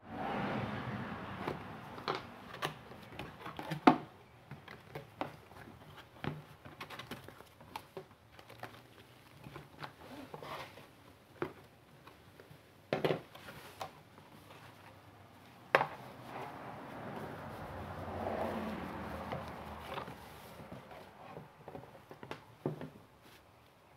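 Cardboard box and its packing being handled as a camera is unpacked. Scattered sharp knocks and clicks of the box and flaps against a wooden table, with stretches of rustling packaging; the loudest knocks come about four and sixteen seconds in.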